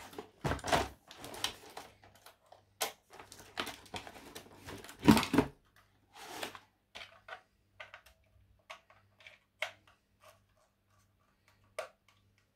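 A cardboard box and its plastic packaging tray being handled: rustling and knocking, with a louder thud about five seconds in, then scattered light clicks.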